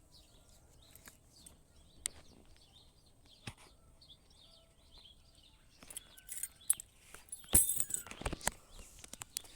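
Birds chirping faintly, with scattered sharp clicks and knocks that bunch together and grow louder over the last three seconds.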